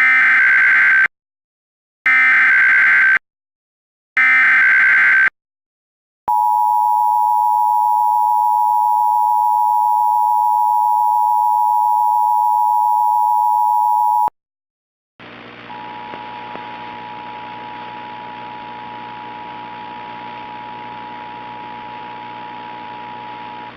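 Emergency Alert System SAME header: three loud, roughly one-second bursts of buzzing digital data, then the EAS attention signal, a steady two-pitch tone held for about eight seconds and cut off sharply. About a second later a steadier, quieter electrical hum with hiss starts as the broadcast audio for the next tornado warning opens.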